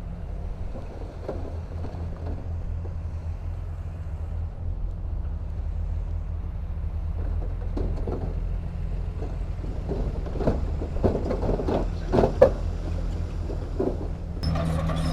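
Komatsu D31P crawler bulldozer's diesel engine running steadily under load, with irregular clanks and knocks from the tracks and blade working soil, heaviest in the second half.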